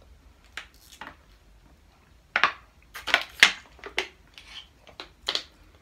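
Plastic juice bottle being handled during and after a drink: a string of sharp crinkles and clicks, busiest about halfway through.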